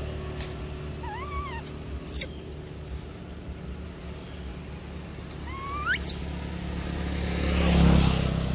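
Long-tailed macaques giving a few short, high, whistle-like coo calls, some arched and some sweeping sharply upward. A steady low hum runs underneath and swells into a rumble near the end.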